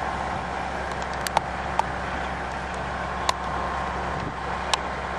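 Steady hum of a running vehicle engine, with about five sharp clicks scattered through it.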